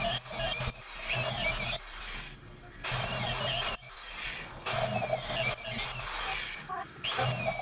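Electric drill with a half-inch bit running in short bursts of about a second, started and stopped five times or so while drilling through a steel table top.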